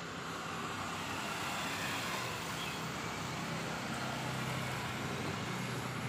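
Steady road traffic noise, with vehicle engines running in the background; it swells slightly over the first couple of seconds.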